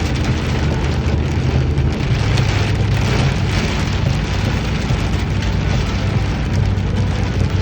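Steady rain with a constant low rumble beneath it.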